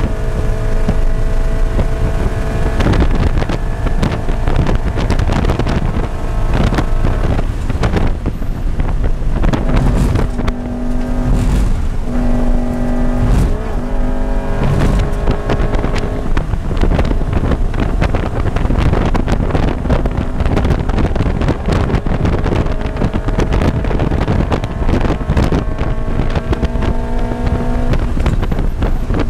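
Scion FR-S's flat-four engine with an aftermarket header, heard from inside the cabin at high revs under full throttle, over heavy wind and road noise. About a third of the way through, the engine note breaks up and changes pitch as the car brakes hard from over 110 mph. It then pulls again, its pitch climbing steadily toward about 7,300 rpm before dropping near the end.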